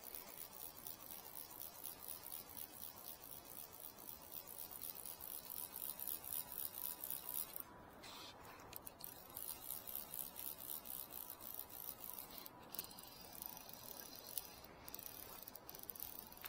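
Steady rush of river water with a fine, rapid high-pitched ticking running through it.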